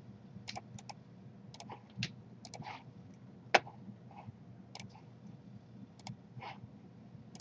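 Computer mouse clicking: scattered single and double clicks, with one louder click about three and a half seconds in, over a faint low hum.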